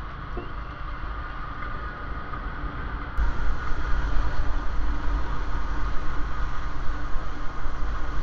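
Motorcycle engine running on the move, with wind rumble on the camera's microphone. The sound becomes louder about three seconds in.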